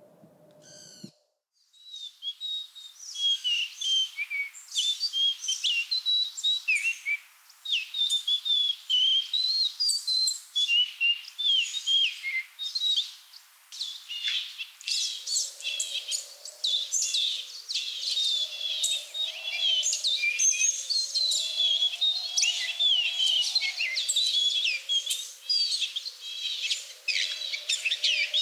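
Songbirds chirping and twittering in a busy chorus of quick, high calls. A lower, wavering sound joins about halfway through.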